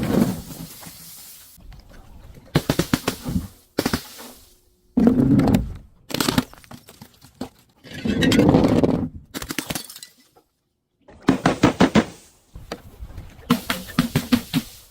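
Objects being crushed and broken in a string of short separate takes: about six or seven bursts of crunching and cracking, some dense with sharp cracks, others softer swells, each cut off abruptly.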